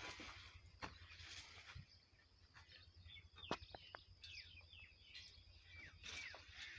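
Faint rural outdoor ambience with several short, falling bird chirps from about two and a half seconds in, and a couple of sharp clicks.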